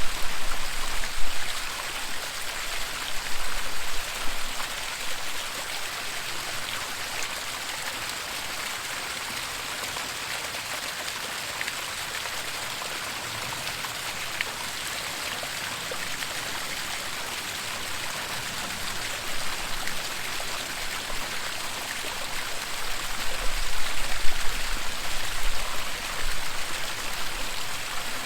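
Waterfall: a steady rush of falling water, a little louder with a low rumble near the start and again for a few seconds near the end.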